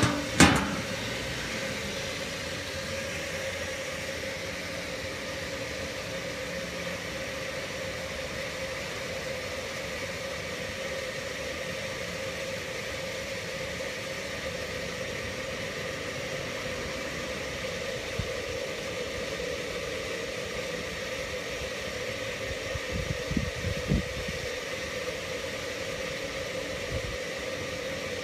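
Steady hum of the batch pasteuriser's agitator motor running during the holding stage. There is a sharp knock just after the start and a few soft thumps near the end.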